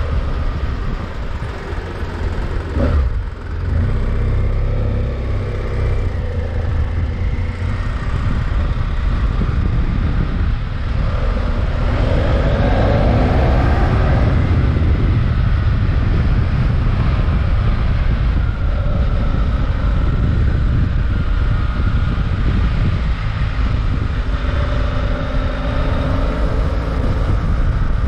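BMW F800GS motorcycle's parallel-twin engine through its stock exhaust, running under way on the road. It eases off briefly about three seconds in, then pulls louder and steadier from about halfway, when the bike passes through a road tunnel.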